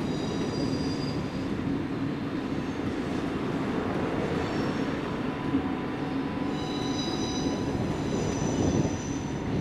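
Swiss Federal Railways (SBB) electric passenger train rolling over curved track and points with a steady rumble. Its wheels squeal in high, thin tones off and on, strongest over the last third.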